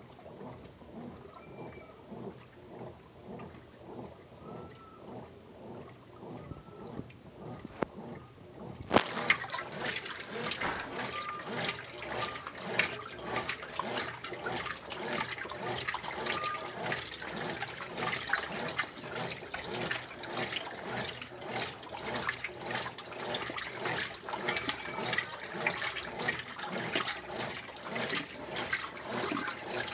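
Consul Maré Super 10.2 kg top-loading washing machine running its wash cycle: water sloshing and splashing in the tub with a regular pulsing rhythm, becoming louder and busier about nine seconds in.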